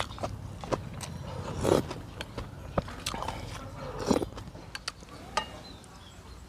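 Close-up eating sounds from a person eating noodle soup: scattered sharp mouth clicks and chewing, with two louder slurps, one about two seconds in and one about four seconds in.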